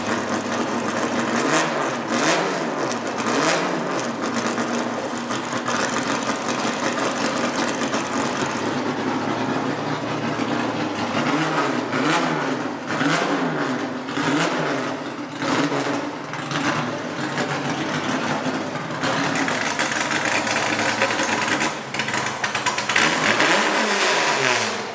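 Car engine revved in quick blips, its pitch rising and falling under a second each time: three blips in the first few seconds, a run of about five in the middle, and one longer rev near the end, with engine running between.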